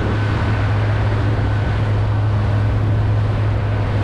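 Boat engine running steadily under way, a constant low drone.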